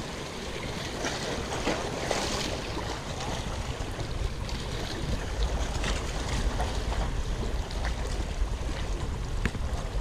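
Sea waves washing against shoreline rocks, with wind buffeting the microphone as a low rumble that gets heavier from about halfway through.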